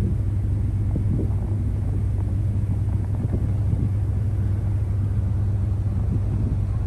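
Car ferry's engine running with a steady low drone, heard from the open deck with some wind on the microphone.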